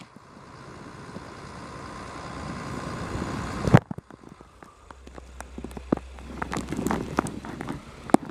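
Hakmo-type diesel railcar engine running: a drone with a whine that slowly grows louder for the first few seconds, broken off by a sharp click, then a low idling hum with scattered ticks and knocks.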